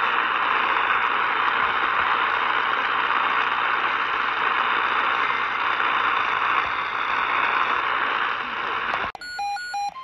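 Steady static hiss from an Eton Elite Traveler portable radio tuned to 1090 AM, with faint steady whistles in it. It cuts off abruptly about nine seconds in, and a weather alert radio gives two short beeps.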